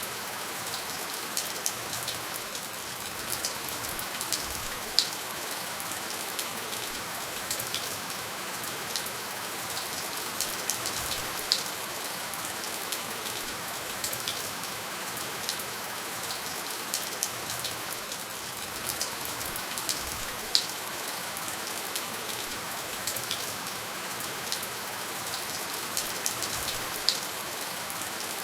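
Steady, gentle rainfall with no thunder: an even hiss of rain with frequent individual drops ticking sharply on a surface.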